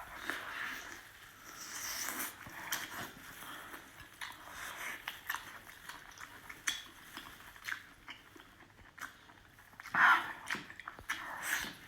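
A person eating at close range: irregular biting and chewing with small clicks and crackles, and a louder burst about ten seconds in.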